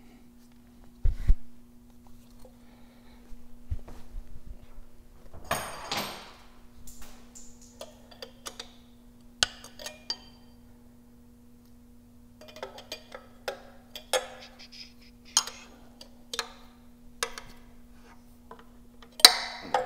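Small metal clicks and clinks of an oil-pressure-sender adapter and elbow fitting being turned by hand into an engine block, with a short rattle of handled parts about five seconds in and a run of separate clicks in the second half. A steady low hum runs underneath.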